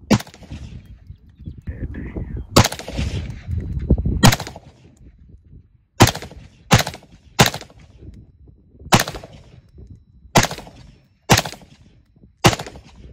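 Smith & Wesson AR-15 rifle fired in single semi-automatic shots: about ten sharp cracks at an uneven pace, some under a second apart, each with a brief echo.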